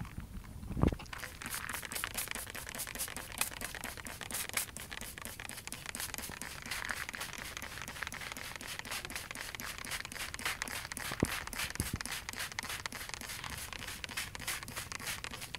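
Hand-held trigger spray bottle being pumped rapidly, a quick run of short hissing squirts onto squash and zucchini leaves, starting about a second in.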